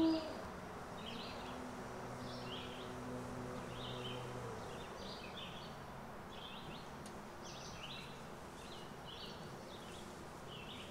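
A wolf howl cuts off right at the start. Then a bird gives short, high chirps about once a second over a faint, steady outdoor hiss.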